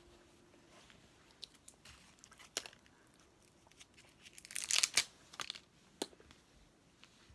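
Crinkling and rustling of a plastic lollipop wrapper: scattered crackles, then a denser crinkling burst about four and a half seconds in, with a few sharp clicks.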